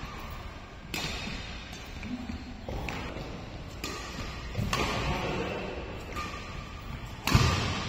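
Badminton rackets striking a shuttlecock during a rally: several sharp hits a second or more apart, echoing in the hall, with the loudest near the end.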